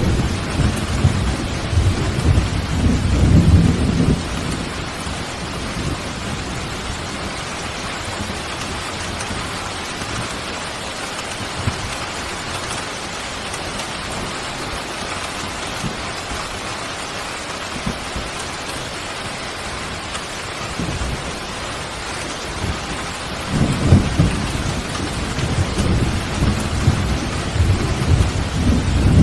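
Steady heavy rain, with low rolls of thunder rumbling through the first few seconds and again from about six seconds before the end.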